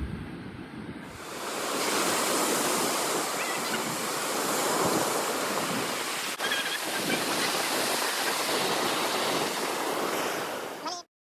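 Ocean surf washing onto a beach: a steady rushing that swells about a second in and cuts off abruptly near the end.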